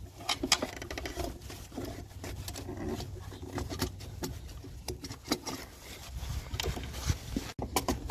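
Irregular small knocks, clicks and rubbing as a new rubber coolant hose with plastic end fittings is worked by hand down between the radiator and the engine.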